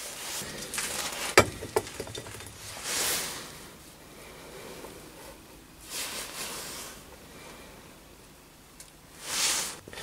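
Hands handling small brass parts on a steel V block: two light clicks about a second and a half in, and short soft hisses about every three seconds.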